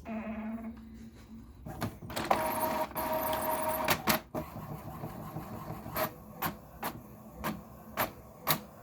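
HP Envy 4500 inkjet printer running a print job. A low motor hum gives way to a louder whirring with two steady tones for about two seconds, followed by a string of clicks about two a second as the mechanism works.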